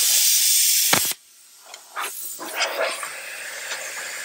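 Hobart AirForce 40i plasma cutter cutting through 3/16-inch aluminum flat bar: a loud steady hiss that stops abruptly about a second in. A quieter hiss of air from the torch follows, with a few light clinks of metal.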